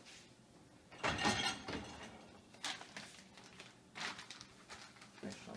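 A handful of short knocks, scrapes and slides, about five in all, from a dishwasher's door and rack being worked as it is loaded.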